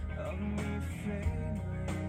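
Background music with guitar and a steady low beat.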